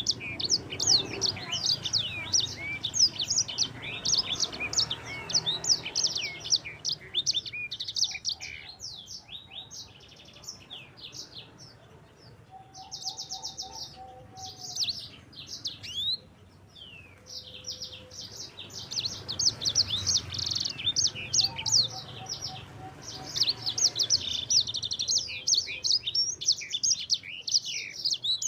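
Sanger songbird singing a fast rolling song of rapid chirps and trills, thinning out for a while in the middle before picking up into dense, continuous trilling again near the end. A few lower, short whistled notes come in twice during the sparser part.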